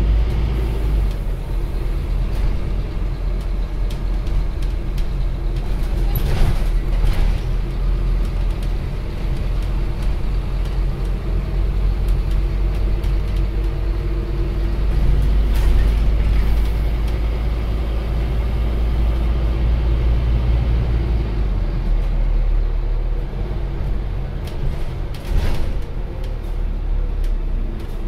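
Scania OmniCity CN230UB single-decker bus heard from inside the passenger saloon: its engine and drivetrain running as the bus drives, with a heavy low drone whose note shifts as the bus speeds up and slows. There are a few brief knocks or rattles.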